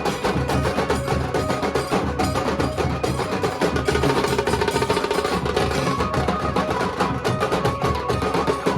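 Nashik dhol band: big barrel dhol drums and tasha drums playing a fast, dense rhythm, with a benjo carrying a melodic line over the drumming.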